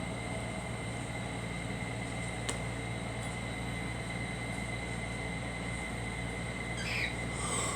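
Steady background hum and hiss with a faint high-pitched whine, broken by one faint click about two and a half seconds in and a short soft noise near the end.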